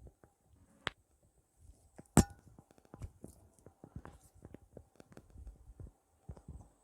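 Hands working on a person's body during a chiropractic massage and adjustment: a run of soft taps, rubs and small knocks, with one sharp, loud snap about two seconds in and a smaller click just before the one-second mark.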